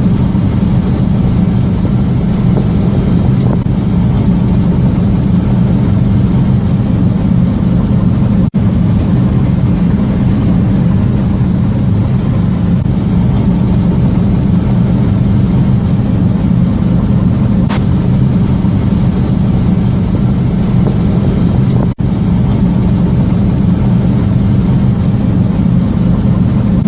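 Heavy farm machinery engine running steadily under load, a constant low drone, broken by brief dropouts about eight and twenty-two seconds in.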